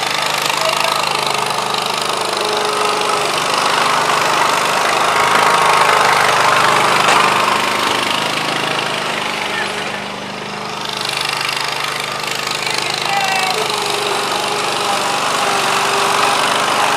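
Lawn mower engine running steadily throughout, dipping in loudness about ten seconds in and then coming back up.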